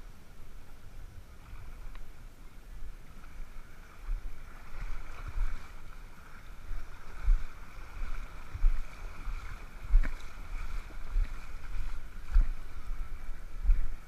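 Wind and movement buffeting an action camera's microphone in irregular low thumps, over a haze of water and wind noise, with a faint steady high hum from about four seconds in.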